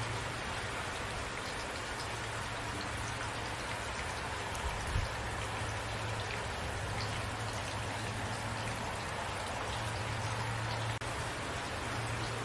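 Steady rain falling: a dense, even hiss with scattered individual drops ticking on a surface and a low steady rumble underneath. The level dips briefly about eleven seconds in.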